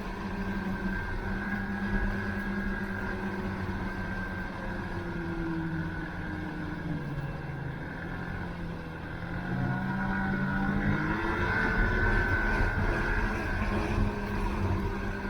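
Snowmobile engine running steadily; about seven seconds in its pitch drops as it slows, then rises and gets louder again as it speeds up.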